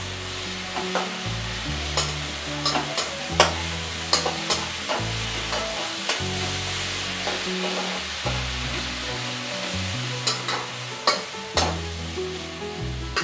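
Sliced onions and ginger-garlic paste sizzling in hot mustard oil in a kadhai, being stirred with a slotted spatula that scrapes and clicks against the pan every so often.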